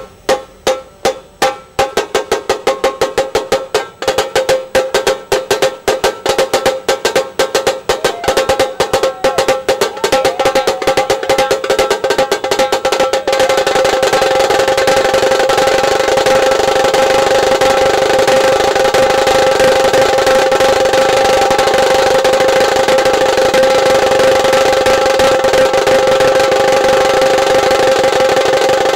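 Dhol-tasha drums: strokes start slow and accelerate steadily, merging about halfway through into a continuous fast roll with a ringing pitch that holds to the end.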